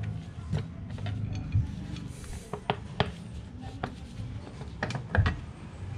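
Scattered sharp metal clicks and knocks as gloved hands work the stator-side engine cover of a Honda XRM125 motorcycle loose, about seven in all, the loudest near the end, over a low steady rumble.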